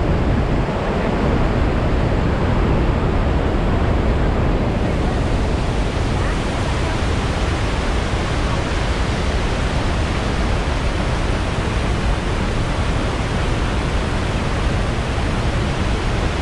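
Iguazú Falls and the rapids below them rushing: a loud, steady wash of falling water that grows brighter and hissier about five seconds in.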